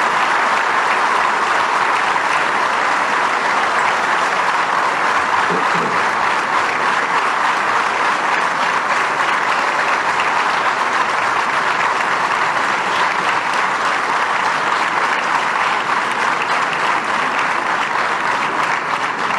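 Sustained applause from a large seated audience, many people clapping steadily, thinning a little near the end.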